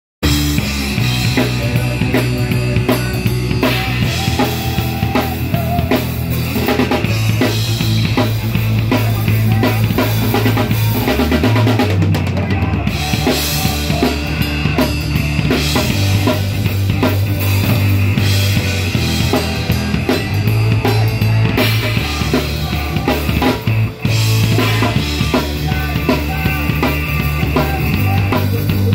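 Live rock band playing loud: a drum kit keeps a steady beat under electric guitars and a low bass line that changes note every few seconds. The band stops for a split second a little before the end, then comes back in.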